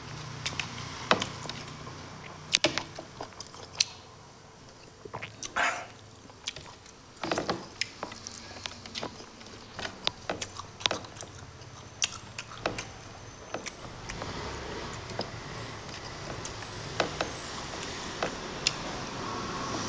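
Close-miked sounds of eating by hand: chewing and lip smacks in irregular sharp clicks, with a couple of longer, louder smacks around the middle, and fingers gathering rice off a ceramic plate.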